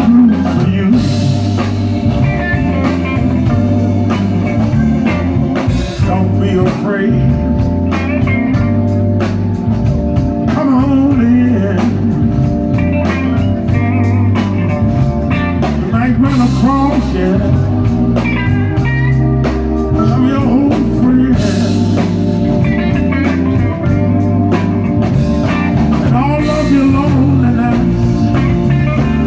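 Live Chicago blues band playing, with electric guitar notes bending up and down over bass, drums and cymbals.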